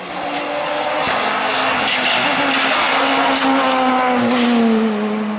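Peugeot 207 S2000 rally car at speed, its two-litre four-cylinder engine running at high revs. It grows louder as it approaches, passes close, and its engine note falls as it goes by near the end.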